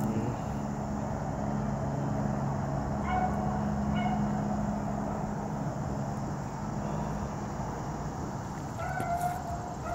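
Hunting hounds giving short, distant calls out in the brush: a couple about three to four seconds in and more near the end, over a steady low hum.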